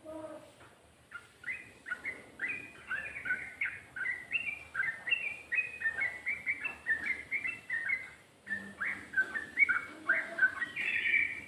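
Yellow-vented bulbul (trucuk) singing a long, rapid run of short, falling chirped notes, several a second, in the fast continuous style keepers call ropel, with a louder burst of song near the end.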